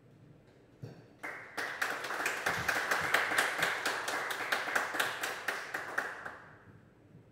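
A small audience clapping in welcome, the separate claps easy to pick out. It starts about a second in, swells, and dies away near the end.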